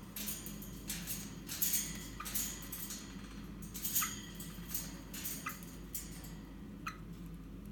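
Irregular scratchy clicks and rustles that thin out after about six seconds, over a steady low hum: a golden-mantled eastern rosella shifting its feet and nibbling on a wooden perch stick held in a hand.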